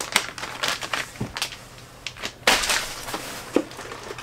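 Rummaging in a cardboard box of packaged fishing lures: plastic bait bags crinkling and rustling against the cardboard, with scattered clicks and knocks and a louder rustle about two and a half seconds in.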